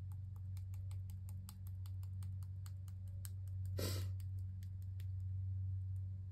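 Quick light clicks, several a second, as the tip of a small plastic bottle of metallic acrylic paint taps against a tile while drops of paint are dabbed on, with one short rasp just before four seconds in. A steady low hum runs underneath.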